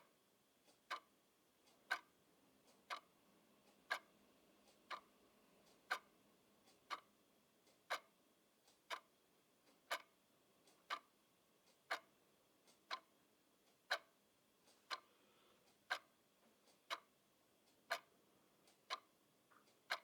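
Grandfather clock ticking slowly and evenly, one sharp tick about every second.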